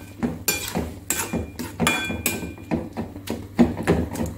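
Metal spatula knocking and scraping against a stainless steel kadhai while stirring and breaking up thick orange pulp, with about two or three strokes a second; several strikes leave the pan ringing briefly.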